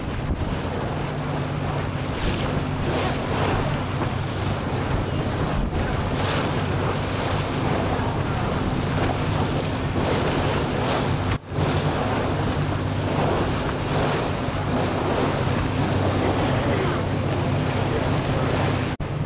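A tour boat's engine running with a steady low hum, under heavy wind buffeting the microphone and water rushing past on choppy water. The sound cuts out briefly about halfway through.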